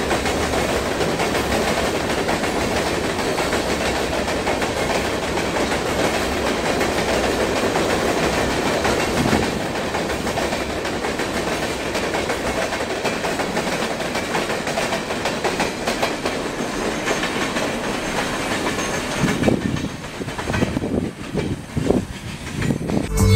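CSX freight train's open-top hopper cars rolling past, steel wheels clattering over the rails and interlocking switches. The noise holds steady, then thins and fades near the end as the last car goes by.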